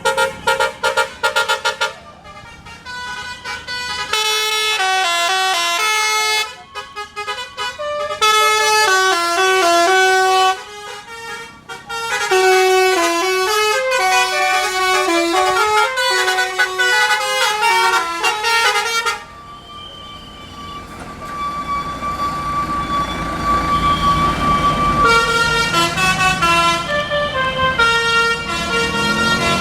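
Indonesian bus 'telolet basuri' multi-tone air horn playing quick melodic phrases of changing notes. It falls quieter for a few seconds after about two-thirds of the way through, with the bus engine's rumble underneath, then plays another short tune near the end.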